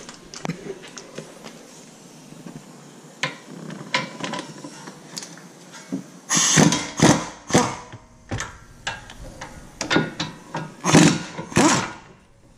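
Pneumatic impact wrench running in several short bursts, starting about halfway through, as it breaks loose the 17 mm brake caliper bracket bolts. Before that there are only light clicks from handling the tool.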